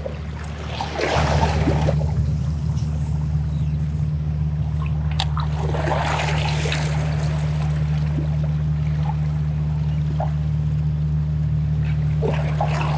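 Water washing and trickling over rocks, surging twice (about a second in and again around six seconds in), over a steady low hum.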